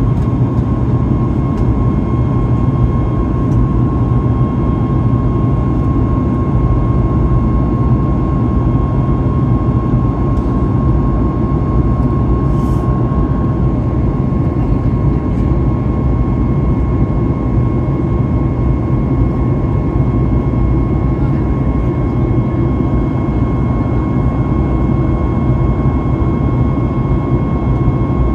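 Boeing 737 MAX 8 cabin noise heard from a window seat beside the engine while climbing out after takeoff: its CFM LEAP-1B turbofan runs in a steady roar with a thin, steady whine on top.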